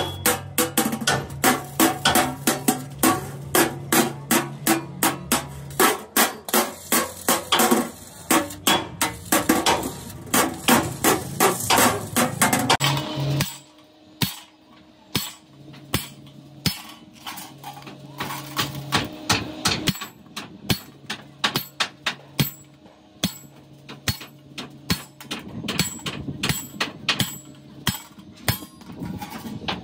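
Hammer striking metal in quick repeated blows, about three a second. About halfway through the blows get much softer.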